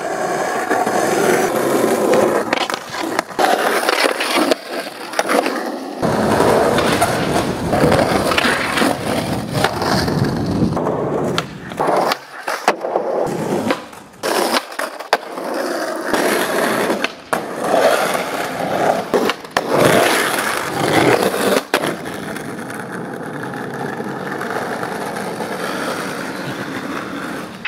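Skateboard wheels rolling on asphalt and concrete, broken by sharp wooden clacks of the tail popping and the board landing. The last few seconds are steady rolling.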